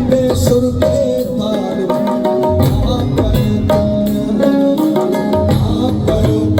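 Live band playing Indian folk music without singing: held melodic notes over quick, frequent drum strikes.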